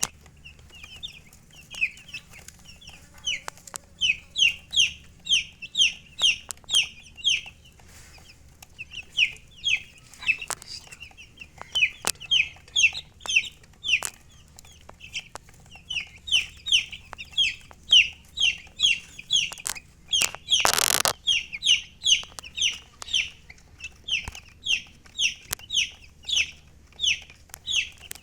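Baby chicks peeping: a continuous run of short, high, falling peeps, several each second, with a few brief pauses. About three quarters of the way through comes a short burst of rustling noise.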